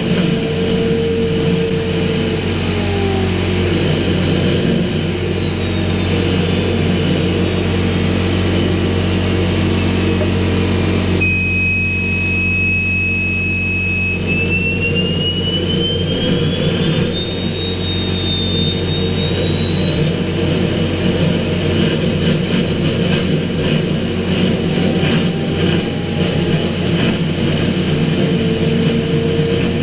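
Homemade turbojet engine with a centrifugal compressor running on gas fuel during a start attempt: a loud, steady rush of air and combustion under a high turbine whine. About halfway through, the whine climbs in pitch and then holds as the engine spools up.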